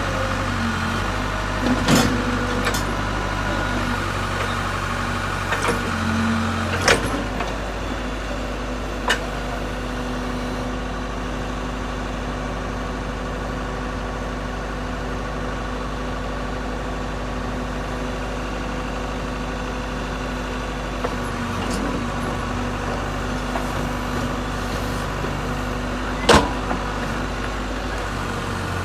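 Case Super L backhoe loader's diesel engine running steadily, with a few sharp knocks, the loudest near the end.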